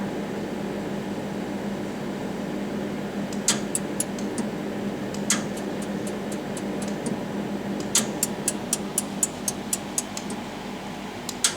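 Pulsed jewelry laser welding machine firing: sharp snapping ticks, a few scattered at first, then a quick run of about four to five a second about two thirds of the way in. Under them the steady hum of the machine and its water cooling system.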